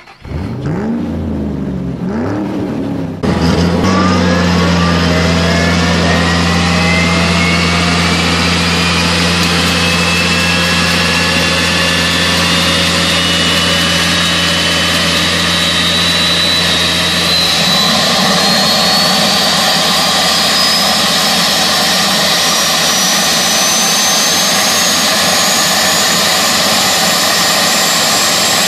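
Opens with a short intro sound of an engine revving twice, then a single-shaft turboprop engine with integral gearbox runs up, a steady low hum under a high turbine whine that climbs slowly in pitch; the low hum changes about two-thirds of the way through.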